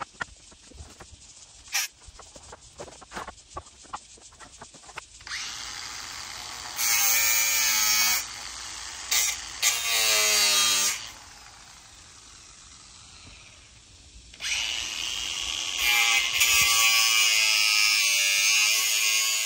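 Circular saw cutting old scrap wood boards. Light knocks of boards being moved come first; about five seconds in the motor spins up, bites through the wood in a few loud cuts, and winds down. It makes one longer loud cut over the last five seconds.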